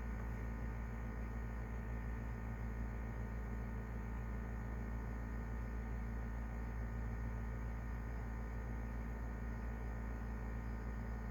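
Steady low electrical hum with several faint steady tones above it and a light hiss, unchanging throughout.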